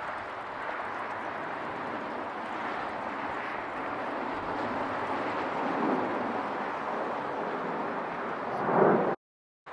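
Twin-engine jet airliner passing low overhead, its engines making a steady rushing roar that builds slowly and swells to a peak near the end before cutting off abruptly.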